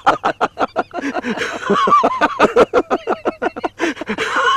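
Men laughing loudly in a fast run of repeated 'ha-ha' pulses, several a second, with no break.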